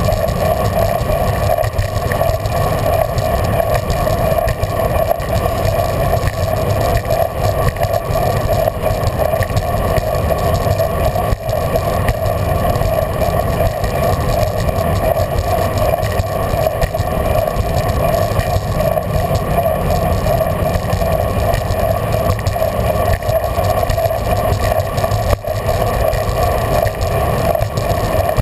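A bicycle being ridden along a paved path, heard from a camera mounted on the rider: a steady noise of tyres and rushing air with a low rumble and a constant mid-pitched hum.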